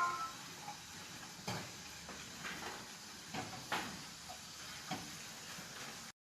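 Last note of a Samsung phone's startup tune dying away at the start, then faint hiss with a handful of soft clicks, cut off suddenly near the end.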